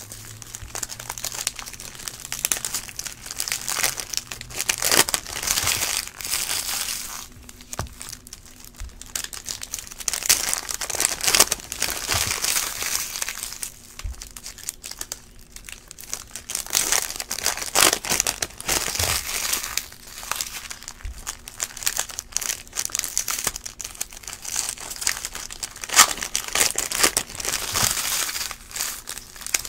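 Plastic wrappers of Panini Prizm baseball card packs crinkling and tearing open by hand, in irregular bursts with short pauses, mixed with the light clicks of cards being handled.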